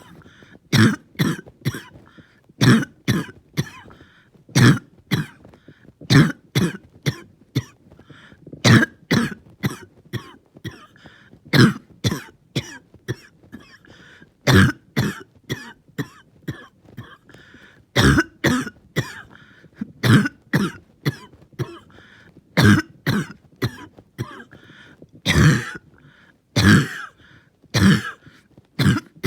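A person in a bad coughing fit: sharp coughs in runs of two or three, recurring every second or two, with breaths drawn in between.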